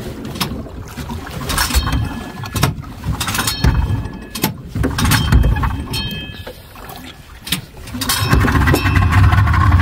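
Outboard motor being pull-started with the choke out: several short rasping pulls of the recoil starter cord, then the engine catches about eight seconds in and runs steadily.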